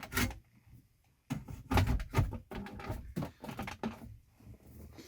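Plastic clicks and knocks as an aftermarket car stereo and its dash trim are pressed back into a pickup's dashboard: a run of irregular sharp taps and thuds.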